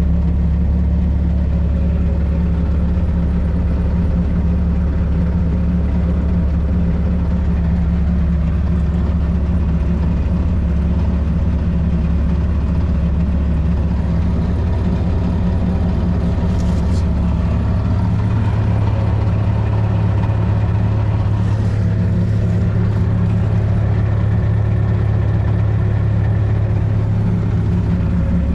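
Bobcat 773 skid steer's diesel engine running steadily. Its low note shifts about two-thirds of the way through and returns shortly before the end, with a few faint clicks in between.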